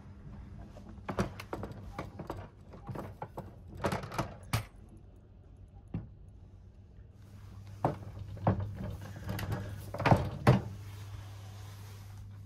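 Knocks, clunks and light rattles of sleeping-car compartment fittings being handled, in two bursts of several sharp strikes, over a steady low hum.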